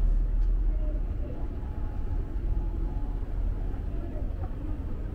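Steady low rumble of a running escalator and the terminal hall around it.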